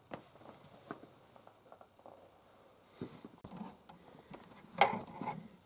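Sparse clicks and knocks from a hand-cranked Tippmann Boss leather sewing machine and the leather being worked through it, with a louder knock near the end; the machine is binding up and throwing double loops, which the owner puts down to dirt, corrosion or wear.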